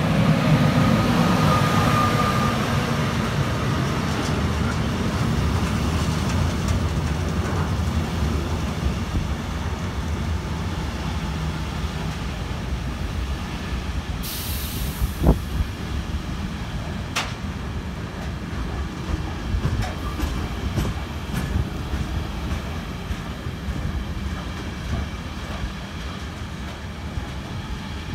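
A train running past on the line, a steady heavy rumble of wheels on rails that is loudest at the start and slowly eases off. About fourteen seconds in there is a short hiss, followed by a couple of sharp clicks.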